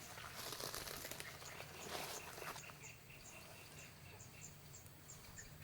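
Faint rustling in the first half, then a run of short, high chirps repeating a few times a second from a small creature.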